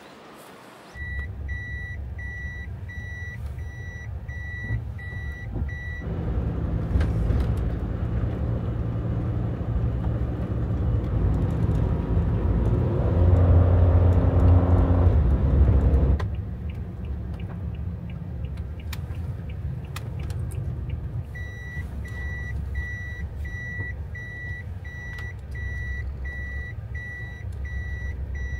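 Toyota Hiace van's in-cab reverse warning buzzer beeping about twice a second over the low hum of the running engine. The beeping stops about 6 s in and the engine and tyre noise grows louder while the van drives, then eases a little past halfway. The beeping comes back near the end as the van reverses again.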